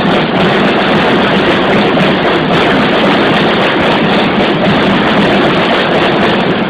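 Loud, steady arena din: a large crowd and a pep squad's cheer music blurred together into an even wash of noise.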